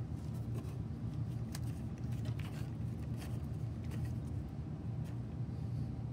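Hand screwdriver turning a screw into the sheet-metal top of a water heater tank, giving a few faint scattered clicks and scrapes over a steady low hum.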